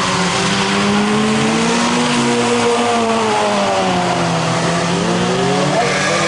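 Toyota 86's FA20 flat-four engine, fitted with an HKS exhaust manifold, revving under drift driving. The engine pitch climbs, holds, drops about five seconds in, then climbs again, over steady road and tyre noise.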